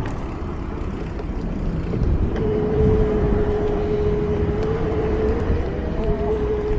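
Wind rumble on the microphone while riding outdoors, with a steady droning hum that comes in about two seconds in and holds one pitch.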